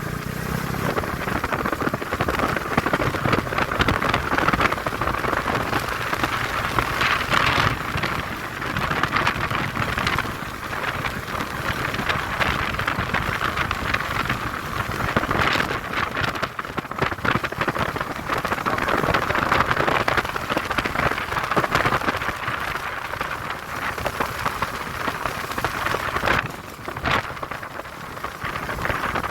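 Steady, crackling rush of wind and road noise on a moving motorcycle, with a few louder surges.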